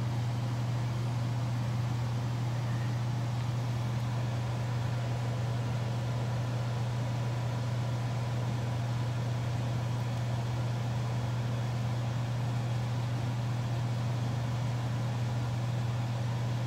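Steady low hum with no breaks or changes.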